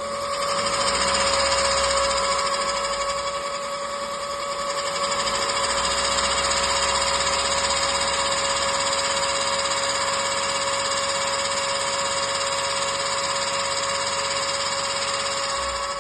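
Hyundai HB20 1.0 three-cylinder engine running with a steady scraping, whining noise over it. It swells louder about a second in and again from about five seconds on as the engine is gently revved. This is the scraping noise whose cause the owner is asking about.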